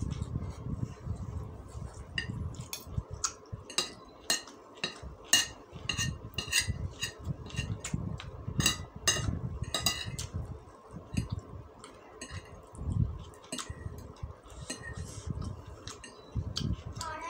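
Metal spoon and fork clinking and scraping against a ceramic plate, many sharp ringing clinks coming thick and fast for several seconds and then more sparsely, with close-miked chewing in between.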